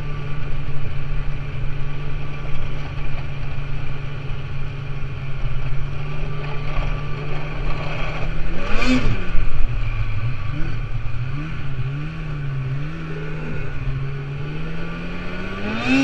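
Snowmobile engine running at a steady pace, then revving up sharply about halfway through. Its pitch rises and falls after that, and it revs up again at the end.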